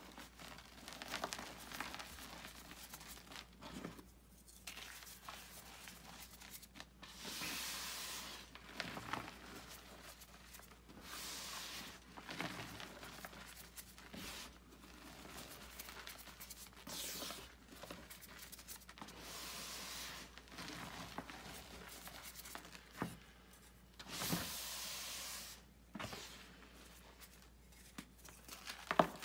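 Hands squeezing and crumbling blocks of gym chalk into powder: soft, irregular crunching and crackling, with several longer rustling bursts of a second or two as handfuls break apart.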